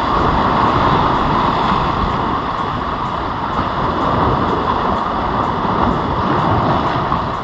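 Steady rushing noise of wind on the microphone and sea water, with an irregular low rumble and no distinct events.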